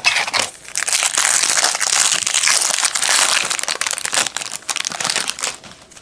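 Foil wrapper of a 2003 Fleer Genuine Insider trading card pack being torn open and crinkled by hand as the cards are pulled out: a dense, continuous crackle that dies away near the end.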